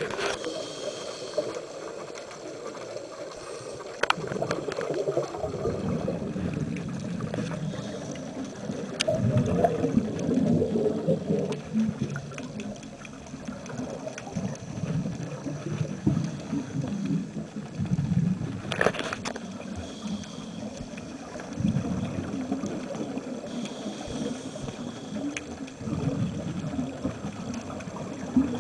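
Muffled underwater sound heard through a camera housing: a scuba diver's exhaled bubbles gurgling in irregular surges, with a few sharp clicks, one near 4 seconds in, one near 9 and a stronger one near 19.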